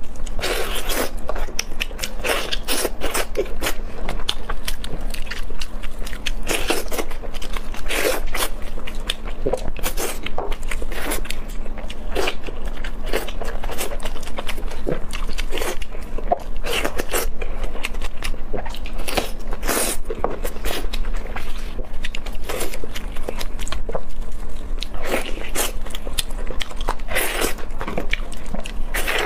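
Eating sounds: biting and chewing glazed pork ribs, with meat pulled off the bone by gloved hands, heard as many irregular clicks.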